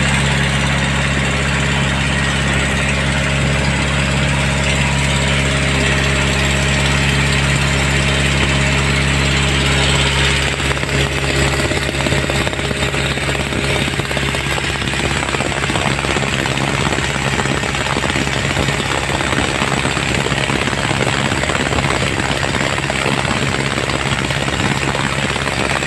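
Wooden river boat's open inboard engine running loudly and steadily, with a hiss of water and wind over it. About ten seconds in, the even hum gives way to a rougher, rattling sound.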